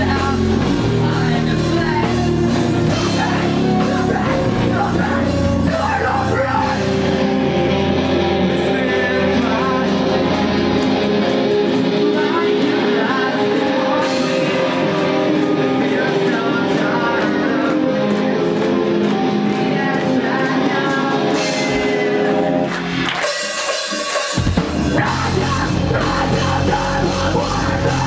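A live heavy rock band plays with distorted electric guitars, bass guitar and a drum kit, and a singer over them. The bass end thins out about a quarter of the way through. Near the end there is a brief break where the low end drops away, then the full band comes back in.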